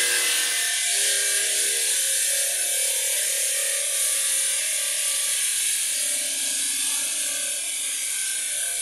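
Marble-cutting machine running at the factory, a loud, steady grinding hiss with a faint hum beneath it.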